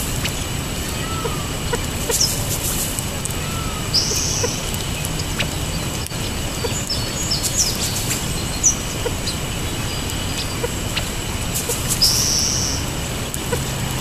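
Wild birds calling around a seed patch: scattered short chirps and ticks, a few soft curved call notes, and two harsh buzzy notes about four seconds in and near the end, over a steady low hum.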